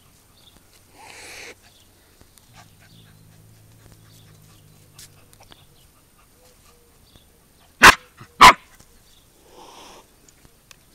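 German shepherd puppy barking twice, two short, loud barks about half a second apart, some eight seconds in.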